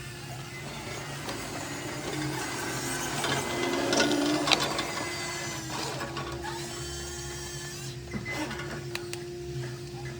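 Huina 1:14-scale RC bulldozer's small electric motors and gearboxes whining as it works, with scattered clicks and clatters; loudest about four seconds in.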